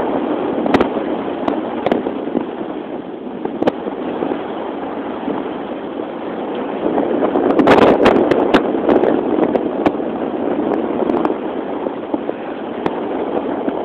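Wind buffeting a cellphone's microphone: a steady rushing with scattered crackling pops, gusting louder about eight seconds in.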